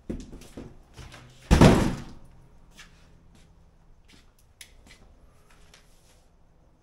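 Cardboard packaging being handled and dropped: a few knocks, then one much louder thump about a second and a half in, followed by light scattered clicks.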